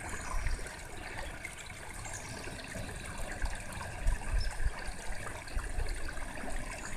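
A small creek running steadily, a trickling, splashing flow of water. A few dull low bumps come through now and then, the loudest about four seconds in.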